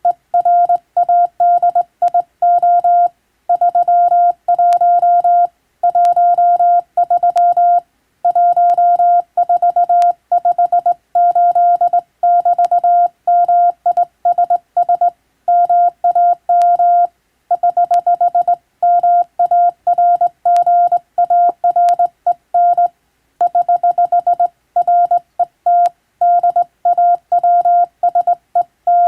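Hand-keyed Morse code: a steady, high-pitched single tone switched on and off in dots and dashes, with short gaps between characters and longer ones between words.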